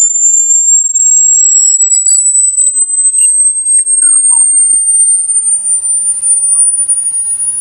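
Electronic rat-repellent tone: a loud, very high single tone that climbs slowly in pitch, with faint short sweeping chirps over the first few seconds.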